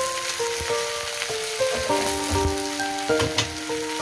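Sea bream braising in seasoning sauce in a nonstick pan, sizzling steadily, with background music playing a simple melody over it.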